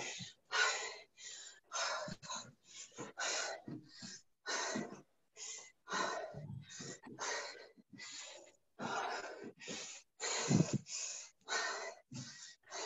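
A person breathing hard from exertion, quick gasping breaths at about two a second. The breaths come through a video call's audio, with the gaps between them cut to silence.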